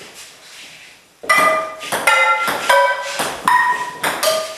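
A table tennis ball hit back and forth with frying pans: about six sharp metallic clangs in quick succession starting about a second in, each pan ringing briefly with its own pitch.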